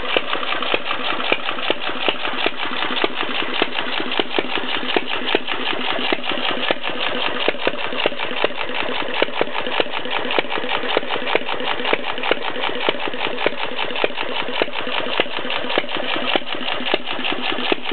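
Stover Economy 1/2 hp single-cylinder stationary engine running steadily with a fast, even mechanical clatter. This is its first run after being brought back from dead, and it is running a little fast.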